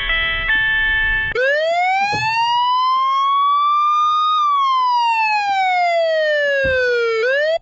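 A few chords of music, then a siren wail takes over about a second and a half in. Its single pitch rises slowly for about three seconds, falls for about three, and starts rising again before it cuts off just before the end.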